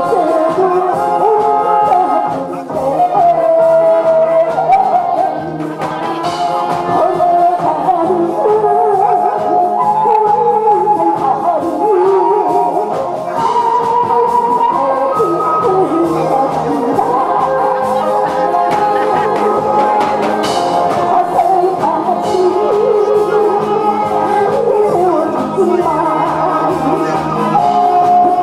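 A woman singing a song into a microphone over backing music with a steady beat.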